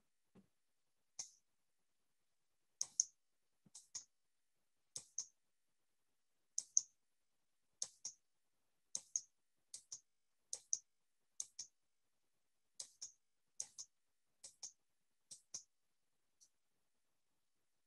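Faint, sharp clicks from a computer being worked, mostly in quick pairs about a second apart, stopping shortly before the end.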